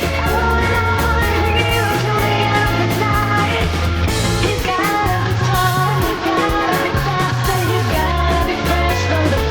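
Rock music with electric guitar, a steady beat and a bass line; a voice may be singing.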